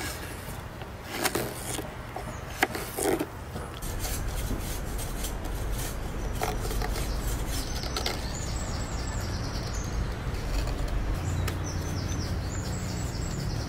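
Carving knife slicing and paring green cherry wood: a few sharp cuts in the first few seconds, then quieter scraping strokes. A steady low rumble runs underneath.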